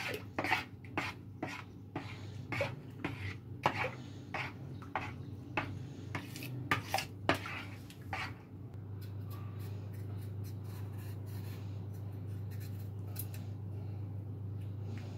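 Metal spoon beating yogurt in a plastic bowl, knocking against the bowl in quick, regular clicks, about two to three a second. The clicks stop about eight seconds in, and a steady low hum is left.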